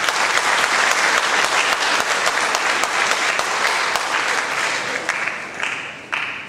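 Audience applauding, a dense steady clapping that tapers off into a few last claps near the end.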